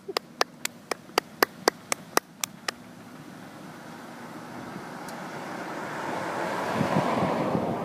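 Hand clapping, about four claps a second, for nearly three seconds, then a rushing noise that swells steadily louder toward the end.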